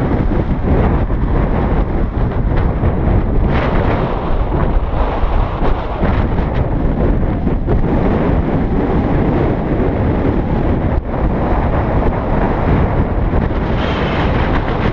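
Loud, steady wind rushing over a bicycle-mounted camera's microphone while riding at speed.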